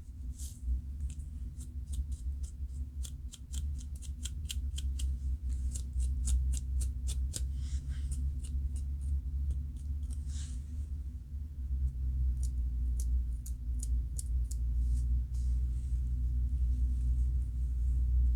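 Dandruff being scratched from the scalp in quick runs of crisp, dry scratching strokes, several a second, with a break about eleven seconds in and the strokes thinning out after about fifteen seconds. A steady low hum runs underneath.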